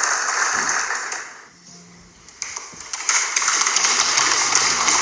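Crowd applause, a dense patter of many hands clapping, which dies away a little after a second in and breaks out again about two and a half seconds in.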